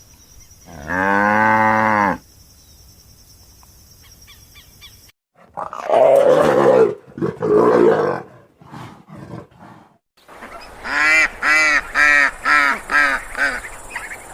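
Animal calls in three separate bouts: a long pitched call about a second in, rough, noisy calls around the middle, and a quick run of seven or so short pitched calls near the end.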